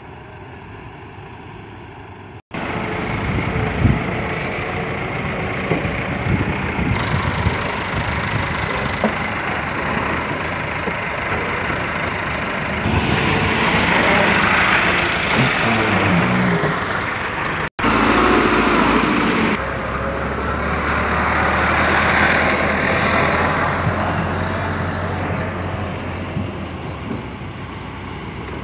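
Diesel tractor engines running close by, a Massey Ferguson among them, with a steady low engine drone in the later part. The sound breaks off abruptly twice where the recording is cut.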